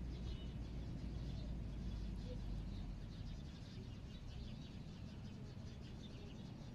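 Faint high chirping of birds, irregular and continuous, over a low rumble that is stronger in the first few seconds and then eases.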